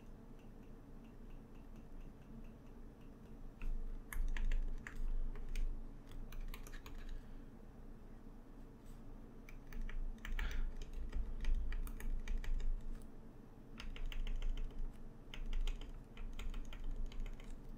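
A stylus tapping rapidly on a drawing tablet to stipple dots, in bursts of quick clicks starting about four seconds in, with a faint steady hum underneath.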